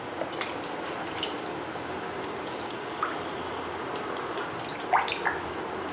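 Cooking oil in a hot kawali: a steady soft sizzle with a few scattered pops and spits, the loudest near the end.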